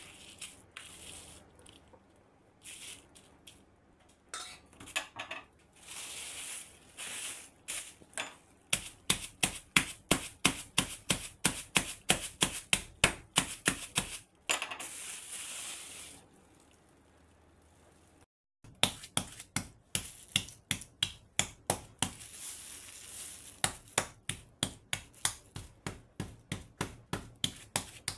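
Metal meat tenderizer mallet pounding chicken breasts through a plastic bag on a cutting board: sharp, steady blows at about three a second in long runs, with plastic bag crinkling between the runs.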